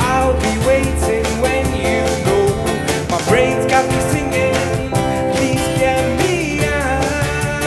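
Live band music: guitars over a steady drum beat, with a melody line that slides and bends in pitch.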